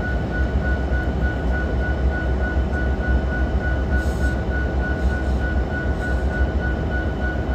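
Union Pacific diesel locomotives idling close by with a deep, steady rumble. A thin high tone rings on and off a few times a second throughout. There is a brief hiss about four seconds in.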